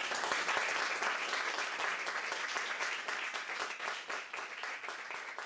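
Audience applauding, the clapping gradually fading toward the end.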